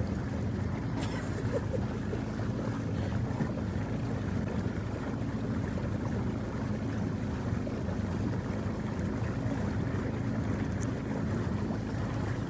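Boat motor running steadily at constant pitch.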